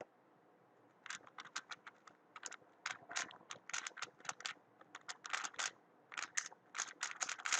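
A Weilong WRM 2019 speedcube turned rapidly through a solve: quick runs of plastic clicking in bursts, starting about a second in and lasting about six and a half seconds, ending in a sharper knock.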